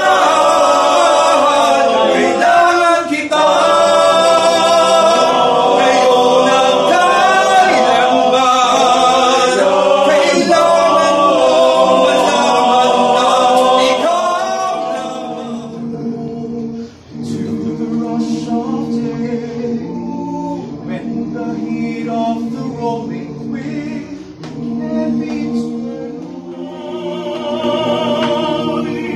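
Choir rehearsing, several voices singing together in harmony. It is full and loud for about the first fifteen seconds, then softer after a brief break.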